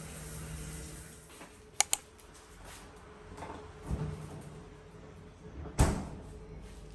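Household handling sounds in a small room: two quick sharp clicks close together about two seconds in, then a dull knock around four seconds and a louder knock near six seconds. A low steady hum fades out after the first second.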